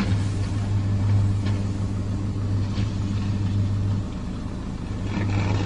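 A steady low hum, heard from inside a car, with a couple of faint crackles while power lines arc and burn in the distance. The hum eases a little about four seconds in.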